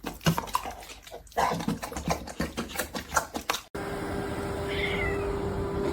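A dog's noises mixed with a rapid run of sharp clicks and knocks. After an abrupt cut about four seconds in, a steady hum with a short high squeak.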